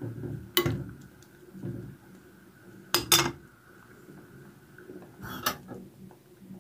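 A metal spoon stirring and clinking against the side of a metal pot of noodle soup, a few separate clinks with pauses between them.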